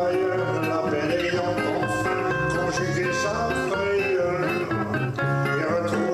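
Acoustic guitar music with a pulsing bass line, the accompaniment to a French chanson.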